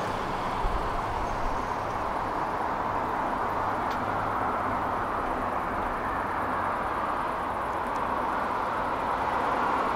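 Steady hum of distant road traffic, with no single sound standing out.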